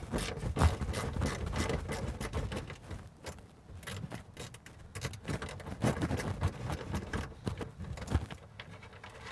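Quarter-inch drive ratchet clicking in irregular short runs as it backs out a 10 mm bolt from a plastic fog light housing, with small handling clicks and scrapes as the loosened bolt is turned by hand.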